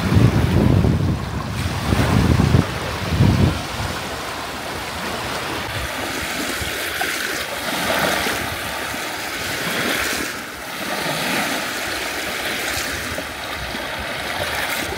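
Small waves lapping and breaking on a sandy river shore, a steady wash that swells every couple of seconds. Wind rumbles on the microphone in the first few seconds.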